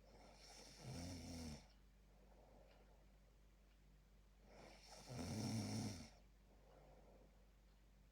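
A sleeping person snoring: two loud, rasping snores about four seconds apart, each lasting a second or so, with faint breaths between.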